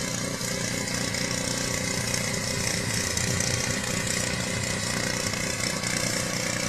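Gas-engine pressure washer running steadily under load, with the hiss of its high-pressure water spray over the engine drone.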